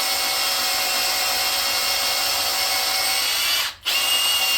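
Cordless drill running steadily as its bit cuts into the aluminium of a Chevy LS engine block, cutting out briefly near the end and then starting again. The bit is dragging in gummy aluminium, so the drill is not spinning as freely as it should on a fully charged battery.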